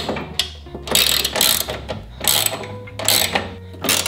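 9/16-inch ratcheting combination wrench clicking as it tightens a bolt, in repeated strokes about one every 0.8 seconds. Each stroke is a short run of rapid pawl clicks.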